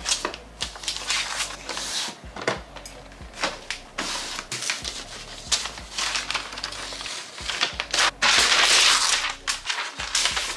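Crinkling and rustling of a MacBook Pro's paper-like protective wrap as the laptop is lifted out of its box and the wrap is peeled off, with scattered light taps and knocks. The crinkling is loudest for a second or so near the end.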